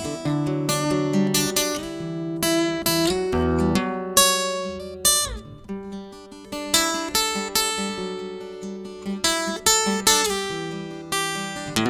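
Acoustic guitar music with no singing: plucked notes and strummed chords, each ringing and fading.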